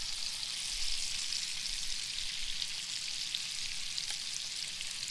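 Bite-sized Cajun-battered brook trout pieces deep-frying in hot oil: a steady sizzle with small crackles, about three minutes into cooking and nearly done.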